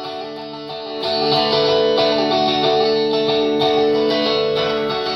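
Live band playing a song's instrumental intro: a plucked string instrument with a chorus effect over sustained chords, swelling louder about a second in.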